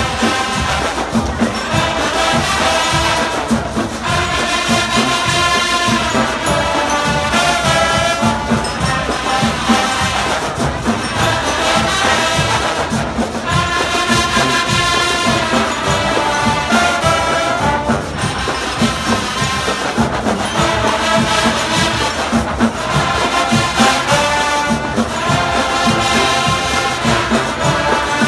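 Marching band playing: a brass melody in held, stacked notes over a steady, continuous drum beat.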